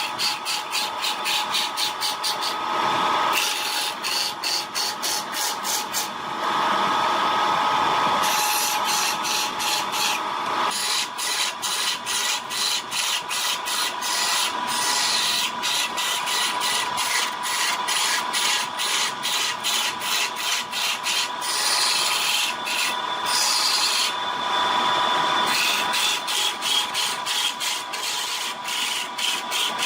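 Wood lathe running with a turning tool cutting into the spinning wood, giving a steady motor tone under a fast, regular ticking and rasping as the tool meets the wood.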